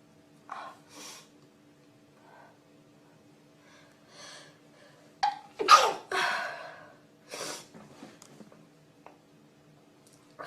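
A sneeze about five and a half seconds in, the loudest sound, with short breathy sniffs and breaths before and after it.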